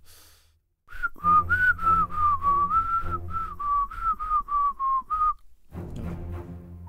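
A man whistling a short tune, one clear note after another at a fairly steady pitch, stopping a little over five seconds in.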